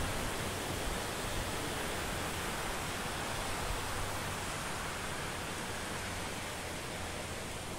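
Steady rushing of a waterfall, slowly growing fainter.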